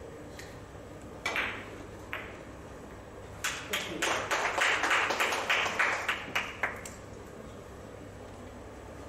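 A billiard cue strikes the ball about a second in, and a lighter ball click follows. About two seconds after the strike, audience applause rises and lasts around three seconds, greeting a scored three-cushion carom.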